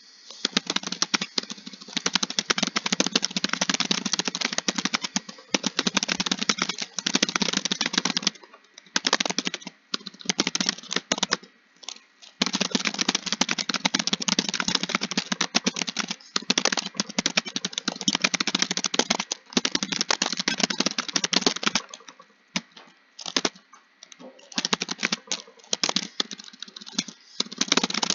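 Fast typing on a computer keyboard: dense runs of keystrokes broken by a few short pauses.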